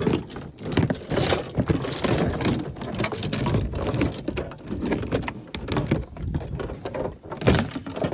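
Irregular clicking, rattling and crunching from break-fence gear being handled and set up: a polywire fence reel and standards.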